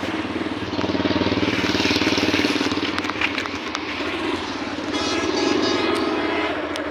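A motor vehicle's engine running with road noise while travelling. It swells about a second in and again around five seconds in.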